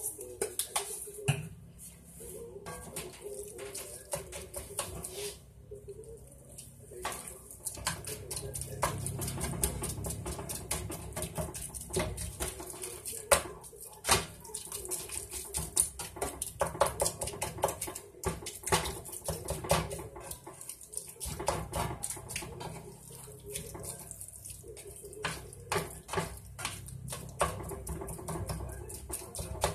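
Spatula scraping and knocking against a cast iron skillet as ground beef is stirred and broken up, over a steady sizzle of the meat frying.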